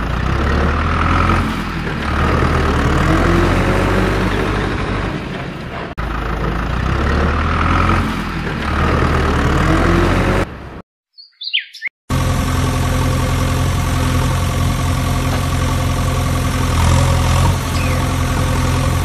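Dubbed-in engine sound of a heavy vehicle running. For the first ten seconds or so it is a loop that repeats about every six seconds. It cuts out for about a second near the middle, with a short falling tone, then comes back as a steady idle.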